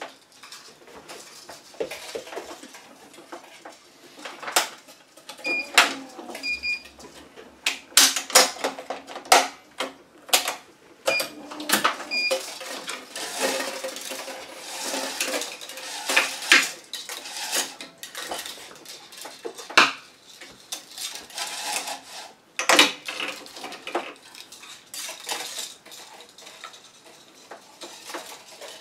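Tennis racquet being strung on an electronic stringing machine: irregular clicks and clacks of metal clamps and the tool, with string being pulled and woven through the frame. Short beeps from the machine come in two pairs, about 6 and 12 seconds in.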